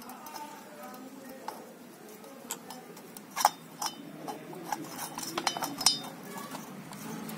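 Light metallic clinks and taps as a new chainsaw cylinder is worked by hand down over the piston and its rings, with a handful of sharp clicks between about three and six seconds in.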